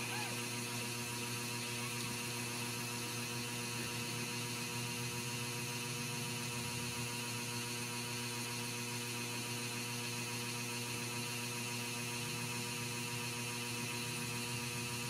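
Steady electrical hum made of several fixed tones over a faint hiss, unchanging throughout.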